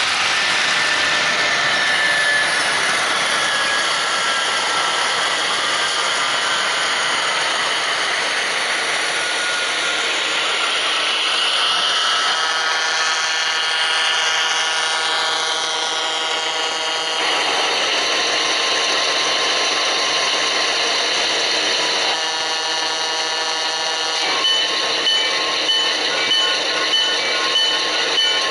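HO-scale model diesel locomotives running on track, with the steady whir of small motors and wheels on rail joints. A multi-note sound-decoder horn sounds about halfway through and again briefly near the end, then a locomotive bell rings in a steady beat of about one and a half strokes a second.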